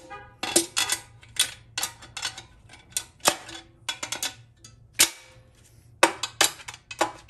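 Screwdriver tip and steel snap ring clicking and tapping against the transmission case as the ring is worked around into its groove inside a GM TH400 case. A rapid, irregular run of about twenty sharp metallic clicks.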